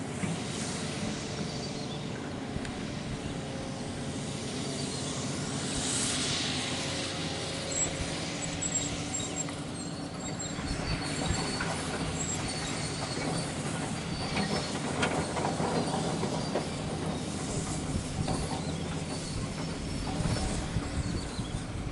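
Radio-controlled model excavator running: its small motors and gearing whine steadily, with thin high squeals coming and going as it moves.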